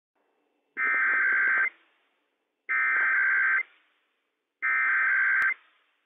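NOAA Weather Radio EAS SAME header, the digital data burst of an alert, sent three times: harsh buzzing data tones of just under a second each, about a second apart, starting sharply and cutting off sharply. Here it opens a Required Weekly Test.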